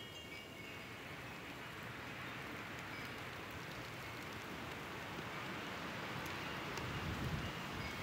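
Steady hiss of a snowstorm, with wet snow falling on the street and surroundings, growing slowly louder. A wind chime tinkles faintly now and then, and low rumbles of wind hit the microphone near the end.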